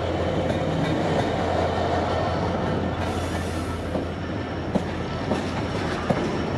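Class 66 diesel-electric freight locomotive hauling tank wagons past, its two-stroke V12 engine giving a steady low drone. A few sharp clicks of wheels over rail joints come in the second half.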